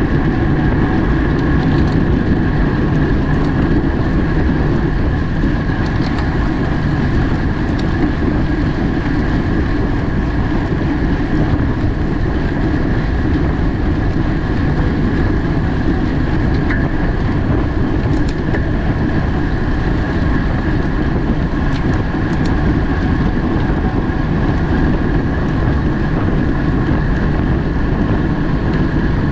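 Steady wind rush over the microphone of a camera on a racing bicycle at speed, mixed with tyre and drivetrain hum from the bike, and a few faint clicks.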